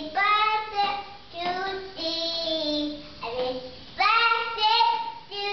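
A young child singing a tune: high, held notes in several short phrases with brief breaks between them, the pitch stepping up and down.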